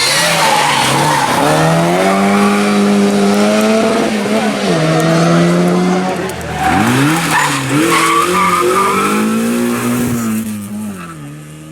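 Rally car engine at high revs, its pitch climbing and falling with gear changes and a sharp lift-off about six and a half seconds in before pulling hard again, with tyres skidding. The sound fades near the end as the car goes away.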